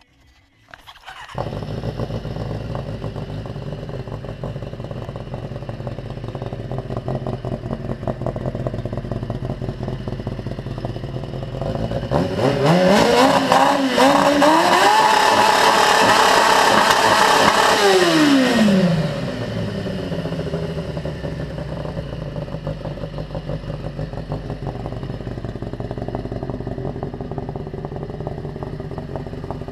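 Kawasaki ZZR600 motorcycle's inline-four engine idling, then revved hard: the pitch climbs, dips briefly, rises again to a high held rev for a few seconds, and falls back to idle about two-thirds of the way through.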